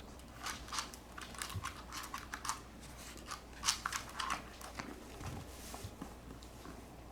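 Puppies and a kitten scuffling at play, a run of irregular scratching and clicking sounds that thins out after about five seconds.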